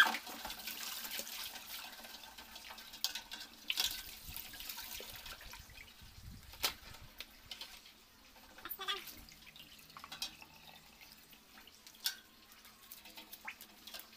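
Tap water running and splashing into a stainless steel basin of water in a sink, fading out a few seconds in, followed by a few sharp knocks against the basin.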